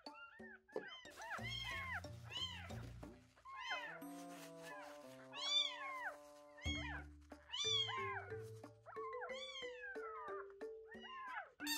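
A very young kitten mewing over and over in short, high, arching mews, about one a second, with a brief pause about four seconds in. Background music plays under the mews.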